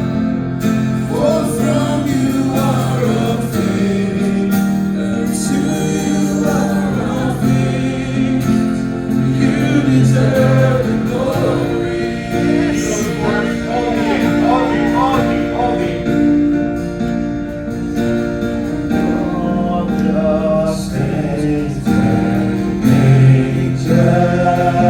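Gospel worship music: a choir or congregation singing over sustained instrumental chords.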